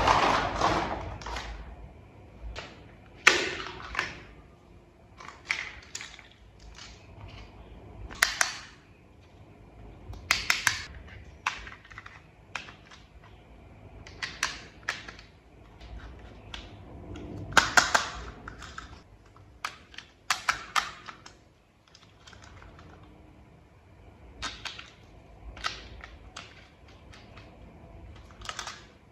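Irregular clicks, taps and knocks of small plastic toy parts being handled and fitted together, some coming in quick little clusters.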